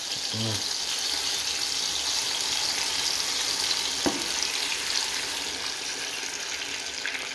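Hot oil sizzling steadily in a frying pan of tomato slices as beaten eggs are poured in, the sizzle easing slightly toward the end. A single light click about four seconds in.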